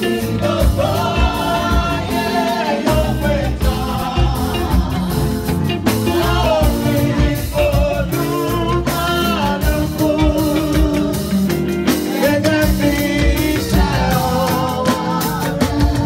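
Live church band playing with a choir: several voices singing into microphones over electronic keyboard, electric guitar and a drum kit keeping a steady beat, with a strong bass line.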